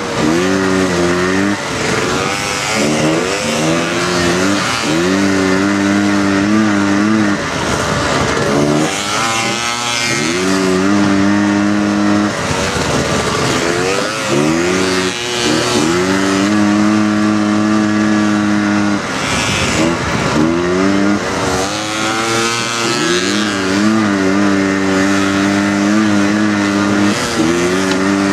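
Single-cylinder four-stroke engine of a Honda off-road buggy revving hard under load. Its pitch climbs, holds and drops sharply again and again as the throttle is opened and closed over rough ground.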